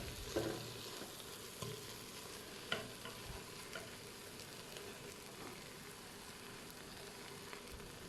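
Faint, steady sizzling of fried tapioca in a hot electric multicooker pot, with a few light utensil clicks as it is stirred and served.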